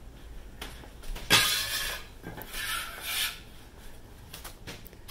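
Kitchen utensil stirring diced apples into thick fritter batter in a glass mixing bowl: wet scraping against the bowl, with two longer rasping strokes in the middle and a few light clicks.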